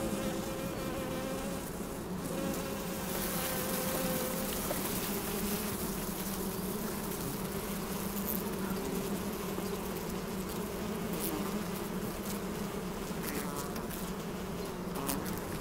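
A dense swarm of honeybees buzzing steadily in the air around a lifted honeycomb, with a few faint clicks in the last few seconds.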